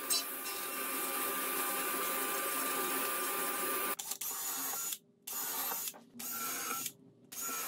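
Sliding table saw running with a steady whine as a panel is fed through it; about four seconds in it gives way to a cordless drill running in short bursts into the wooden table frame, with brief silences between them.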